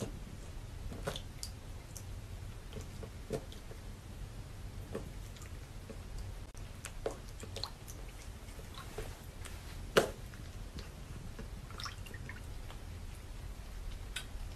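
Cat pawing at shallow water in a sink: scattered small splashes and drips, with one sharper, louder knock or splash about ten seconds in.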